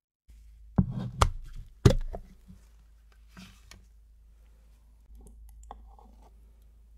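Three sharp knocks of a hard plastic blender jar being handled in the first two seconds, then lighter clicks, and faint scraping as a metal spoon works through thick strawberry sorbet inside the jar near the end.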